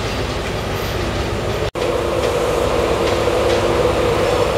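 Class 43 HST diesel power car running as the train comes into the station: a steady engine drone over rail noise. The sound drops out for an instant about a second and a half in, then the drone returns with a stronger steady hum.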